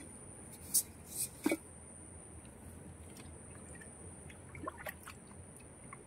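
Small splashes and drips of shallow muddy water stirred by hands, with a few short splashes about a second and a half in and fainter ones near five seconds.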